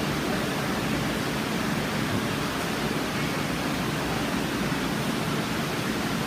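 A steady rushing hiss, even throughout, with no distinct knocks or voices.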